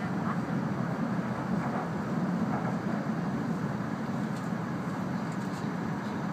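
E2 series Shinkansen running noise heard from inside the passenger cabin: a steady low rumble and rush.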